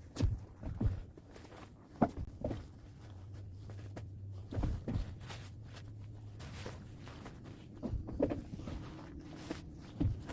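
Tent being taken down and packed: irregular knocks, thumps and short rustles of tent fabric, poles and gear being handled, a few seconds apart, over a low steady rumble.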